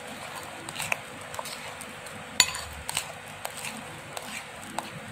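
A spoon clinking and scraping against a ceramic bowl while stirring a thick custard mixture: scattered light ticks, with one sharp clink about two and a half seconds in.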